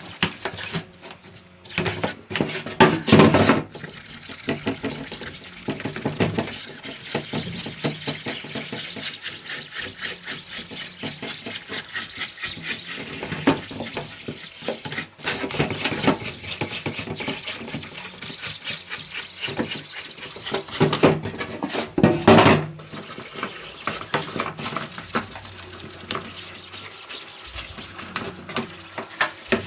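A continuous fast run of scraping and clattering from hard parts being handled and rubbed, with two louder knocks about 3 and 22 seconds in.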